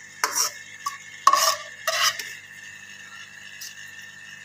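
Steel slotted spoon scraping and clinking against a metal frying pan as sautéed vegetables are scooped out, with four sharp scrapes in the first two seconds, then quieter.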